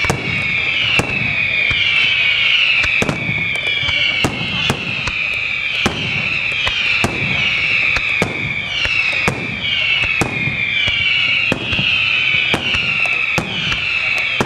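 Aerial fireworks display: shells bursting in quick, irregular succession as sharp bangs, over a loud high falling whistle that repeats about once a second.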